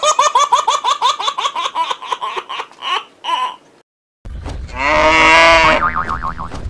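Comic sound effects: a quick run of springy boing-like chirps, about four a second, for some three seconds. After a brief silence comes a loud, long pitched blare with a wavering tail.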